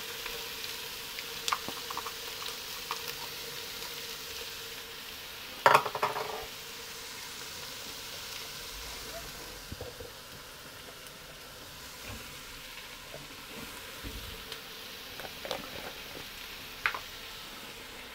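Chopped peppers, onion, tomato and garlic sizzling gently in oil in a pan while being stirred, with small clicks of the utensil. About six seconds in comes one loud, sharp clink with a brief ring, and the sizzle is quieter in the second half.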